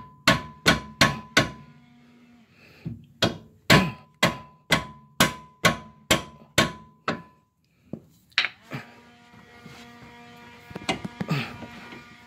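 Mallet blows on a Mercedes W211 lower control arm, knocking it loose from its mount: about five quick strikes, a short pause, then about a dozen more at roughly three a second, each leaving a brief metallic ring. A single knock follows near the end, then some light clatter.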